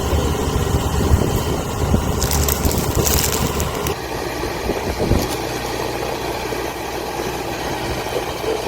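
Rice combine harvester engine running steadily, with a louder rustling, crunching burst of noise from about two to three and a half seconds in as it cuts and takes in rice stalks.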